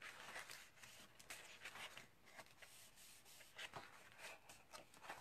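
Faint rustling and soft flicks of sheets of designer paper being turned over by hand, a scatter of small paper clicks.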